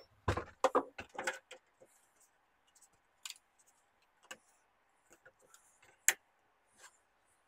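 Flexible steel build plate of a 3D printer being lifted off its magnetic bed and handled: scattered light clicks and metallic taps, several close together at first, with one sharp click about six seconds in.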